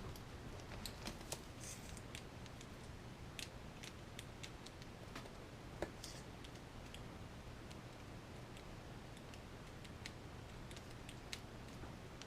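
Faint, scattered clicks and light scrapes of small plastic and metal parts and a small hand tool being handled during RC kit assembly, with a few clicks about every second in the first half and sparser later.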